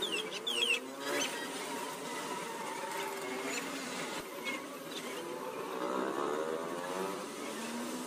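A motor vehicle engine passing by, its pitch gliding up and then down around six seconds in, over steady background hum. Two short high falling chirps come in the first second.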